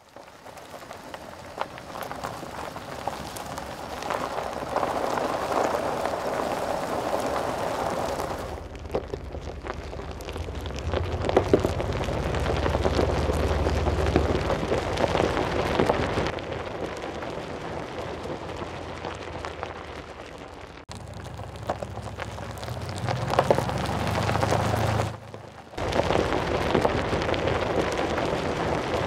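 Tyres of a Toyota 4Runner crunching and crackling over a rocky dirt track, with a low engine rumble underneath in some stretches. The sound changes abruptly several times.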